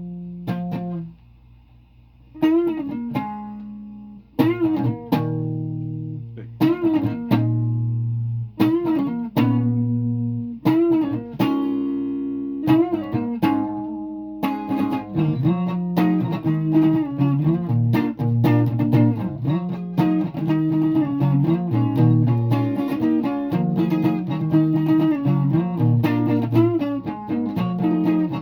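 Guitar playing: single struck chords or notes ring out about every two seconds at first, then from about halfway the playing turns into steady, faster picking.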